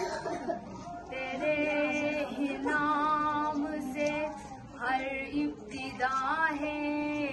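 A girl's voice chanting a sung Islamic recitation, unaccompanied, in long held and wavering melodic phrases with short pauses for breath.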